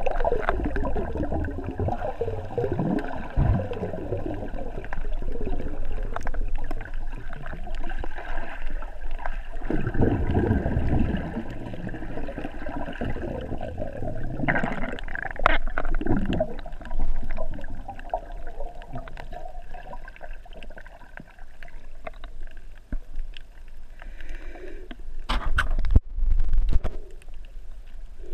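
Muffled underwater water movement and bubbling, with a few louder gurgling surges.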